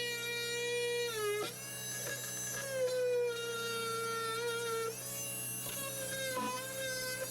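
Background music: long held instrumental notes that glide to a new pitch every few seconds.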